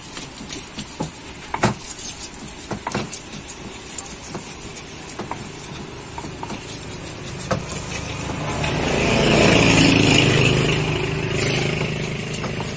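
Stone pestle knocking and grinding in a stone mortar (ulekan and cobek) as chilies and fried food are crushed for sambal, in scattered sharp taps. A passing motor vehicle rises to the loudest point about two-thirds through, then fades.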